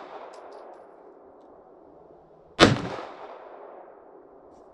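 A single pistol shot about two and a half seconds in, its echo dying away over a second or more; the echo of a previous shot is still fading at the start.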